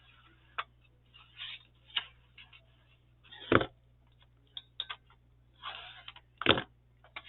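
Paper and craft pieces being handled on a desk: light rustling and small clicks, with two sharp taps about three seconds apart, the first about halfway through and the second near the end.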